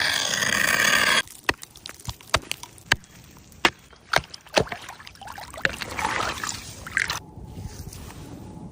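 A loud splashing rush of water for about a second, then a string of sharp knocks and clicks with more sloshing, then quieter.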